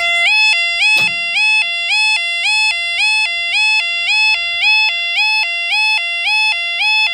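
Level crossing audible warning alarm sounding a loud two-tone warble, about two cycles a second, signalling that the crossing is closing. A single sharp knock about a second in.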